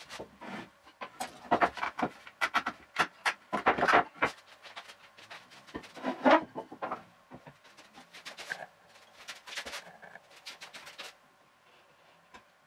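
Workshop handling sounds sped up about four times: a quick, irregular run of knocks and clatters as wooden bench parts are picked up, fitted and set down on the workbench, with a short pitched squeak about six seconds in. It thins out and goes quiet a little before the end.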